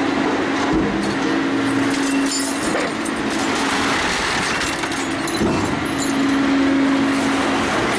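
Shark 1100 rebar shear cutting a bundle of steel rebar: a steady hum from the machine, with metallic clatter and jangling as cut bars fall. Heavier thuds come about a second in and again about five and a half seconds in.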